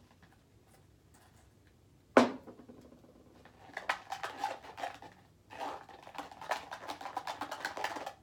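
A single sharp knock about two seconds in as a shaving cream can is set down on the table, then a run of quick scraping and clicking from a utensil stirring inside a small plastic tub.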